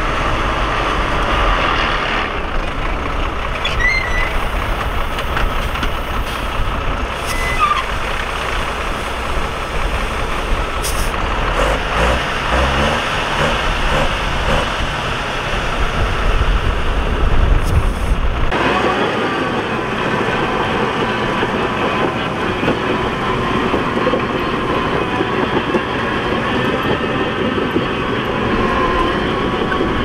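Diesel engines of heavy earthmoving machinery running hard, a continuous mechanical engine noise. Past the middle the deep low rumble drops out abruptly, leaving a higher-pitched engine noise.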